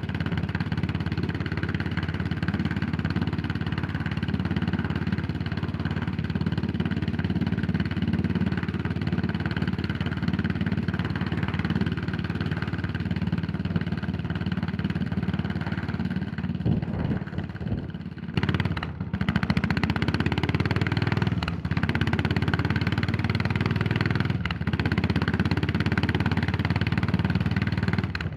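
Yamaha SR400's single-cylinder four-stroke engine running on the move, heard from the rider's position. About two thirds of the way through it drops off briefly, then comes back louder and pulls again with a couple of short breaks.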